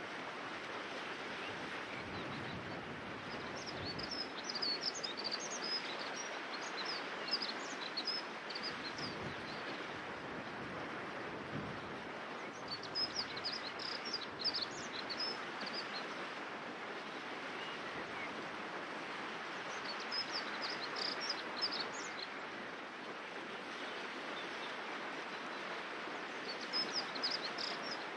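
River water rushing steadily over a stony bed, with a small songbird singing phrases of quick high notes four times over it.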